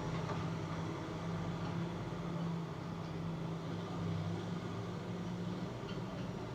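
Steady low mechanical hum over a constant background rumble, unchanging throughout.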